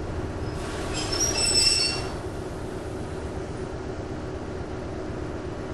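NS DE II 186 diesel-electric railcar running with a steady humming and buzzing drone. A brief high-pitched squeal comes about a second in and is the loudest moment.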